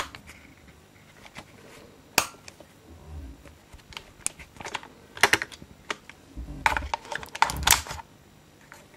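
Tokyo Marui M870 gas airsoft shotgun being handled, its full-metal parts making sharp clicks and clacks. There is a single strong click about two seconds in, then a quick run of clicks and rattles from about five to nearly eight seconds, as the shell lifter and receiver are worked.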